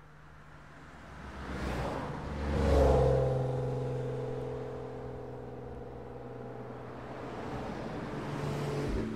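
Car engine pulling hard, loudest about three seconds in, then holding a steady note as the car cruises, with a second swell and a sudden drop just before the end; tyre and wind noise underneath.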